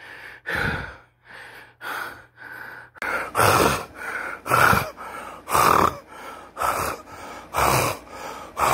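A man panting heavily, gasping in and out about once a second, out of breath from the exertion of carrying heavy grocery bags up the stairs. The breathing gets louder about three seconds in.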